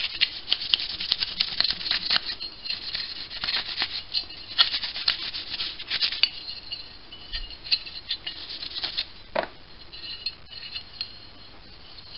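A rag rubbing and polishing a small metal burner slide from a model steam engine, giving a fast run of scratchy squeaks and scrapes. The rubbing thins out in the last couple of seconds.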